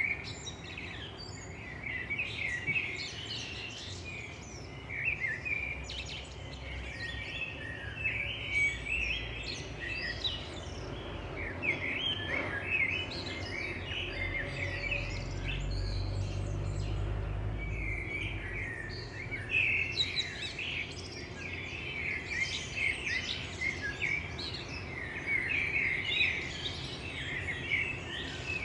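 Many wild birds singing and chirping together, a dense mix of short overlapping calls, over a steady outdoor background with a low rumble that swells for a few seconds in the middle.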